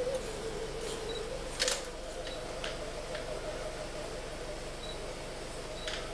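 Light metallic clicks of steel dental tweezers and instruments being handled in gloved hands, with one sharper click about a second and a half in, over a steady low hum.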